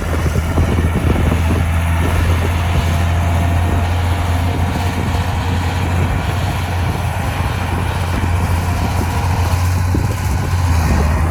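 Heavy diesel engine of earthmoving machinery running steadily, a constant low drone with no breaks or changes in pitch.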